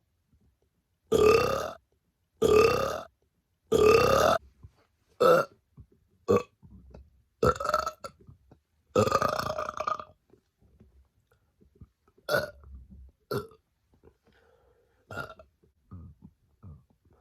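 A woman burping on command in a series of about a dozen separate burps with short pauses between them. The longest and loudest come in the first few seconds and again about halfway through, with short burps between them and smaller, fainter ones near the end.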